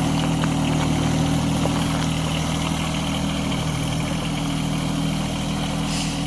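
John Deere 1023E compact tractor's three-cylinder diesel engine running at a steady, low speed.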